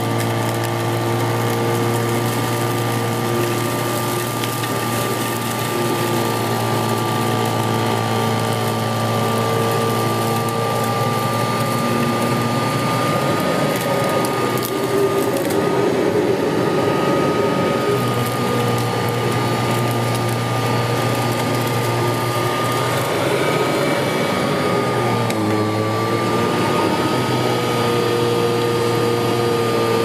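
1981 Kirby Heritage 1 upright vacuum cleaner running on carpet: a steady motor hum with a high whine held over it, the pitch sagging briefly about 25 seconds in before recovering.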